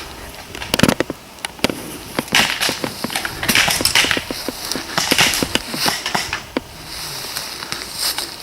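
Scattered, irregular sharp cracks and pops mixed with bursts of rustling.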